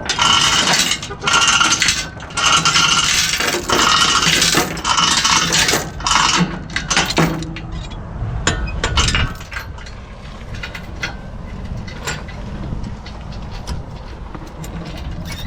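Mini excavator being moved into place on a trailer, with metallic clinking and rattling. The clatter is loud for about the first seven seconds, then gives way to fainter scattered clicks over a low steady hum.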